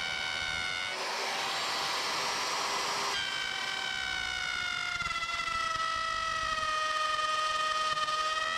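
Handheld electric router running with a high whine as it cuts along a template. There is a rougher, noisier stretch about one to three seconds in, and then the whine slowly drops in pitch as the motor loads up in the cut.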